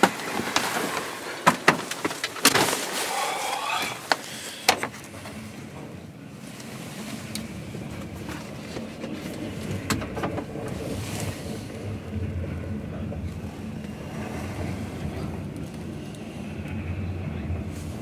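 Double-stack container cars of a CN freight train rolling past, a steady low rumble of wheels on rail, muffled from inside a car. Several sharp knocks and clicks of handling inside the car come in the first few seconds.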